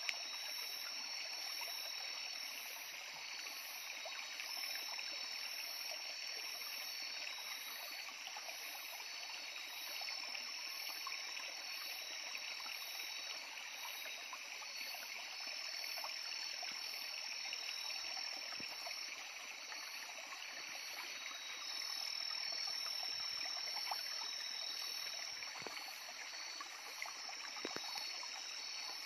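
Stream water flowing steadily, with steady high-pitched night insect calls and a regular pulsing chirp at about two a second over it. A few faint clicks near the end.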